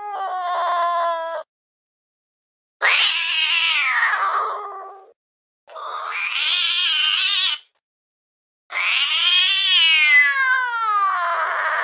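Domestic cat yowling: the end of one call, then three drawn-out meows with silent gaps between them. The last is the longest and falls steadily in pitch.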